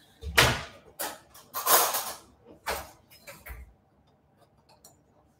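Kitchen utensils and containers being handled: a run of about six knocks and clatters, some with a dull thud, over the first four seconds, then only a few faint ticks.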